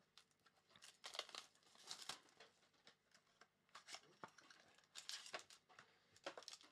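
Wrapping on a sealed trading-card box and its foil pack crinkling and tearing as the box is opened by hand. The sound comes in short, quiet, scattered crackles.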